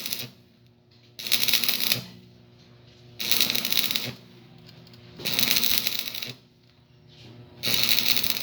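Repeated rough scraping or rasping strokes, each about a second long, coming about every two seconds, with a faint steady hum beneath.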